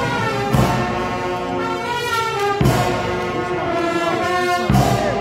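Military brass band playing held chords, with a strong low accented note about two and a half seconds in and again near the end.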